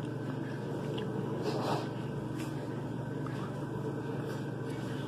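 Steady low hum of indoor room noise, with a few faint soft clicks as a man eats.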